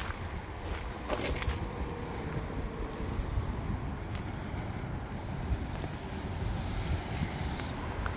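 Steady low rumble of urban road traffic, with a few faint clicks about a second in.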